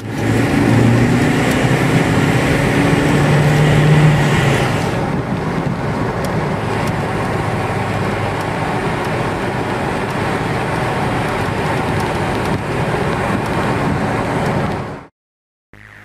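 Opel Cascada driving at speed, heard from inside the cabin: engine running with steady tyre and wind noise, the engine note rising a little over the first few seconds. It cuts off suddenly about a second before the end.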